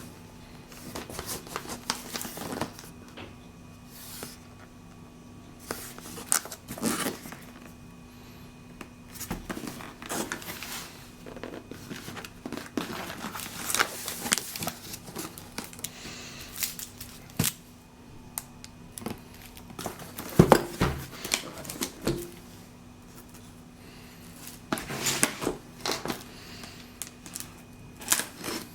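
Cardboard box and packaging being handled and opened: scattered rustles, crinkles, tearing and light knocks.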